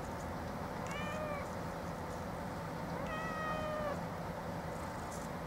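A cat meowing twice: a short meow about a second in, then a longer, steadier meow about three seconds in, over steady low background noise.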